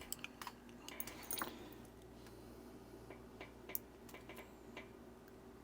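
Faint, scattered small clicks and taps of tiny watch-module parts and tools being handled, most of them in the first second and a half and one more just before 4 seconds, over a low steady hum.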